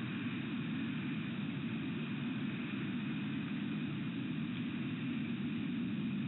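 Steady, even background noise with no distinct sounds, a low rumble under a fainter hiss.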